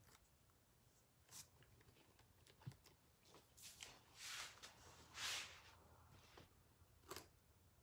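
Faint, brief rustles and crinkles of a thin adhesive stencil sheet being handled and pressed down, about half a dozen soft noises with near silence between them.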